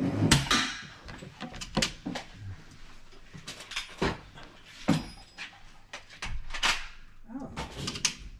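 Air guns firing on an indoor range: about six or seven sharp cracks at irregular intervals of one to two seconds, each with a short echo off the walls.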